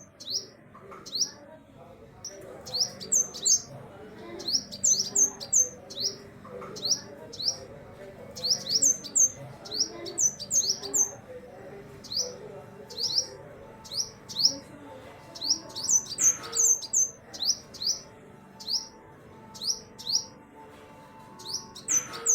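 Small birds chirping: clusters of short, high, quick chirps repeating about once a second, over a faint low murmur.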